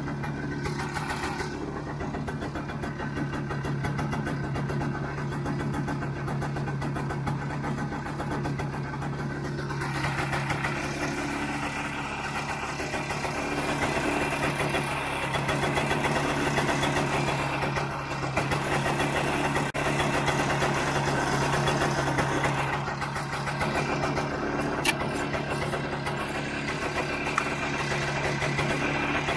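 1969 Ski-Doo Olympique's 320cc single-cylinder two-stroke engine idling steadily, then, about ten seconds in, revving up and running at speed as the snowmobile pulls away and crosses the lake.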